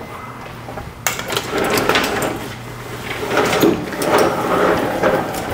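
Dense clattering and knocking of a busy gym floor, starting suddenly about a second in and continuing as a steady jumble of knocks and clanks.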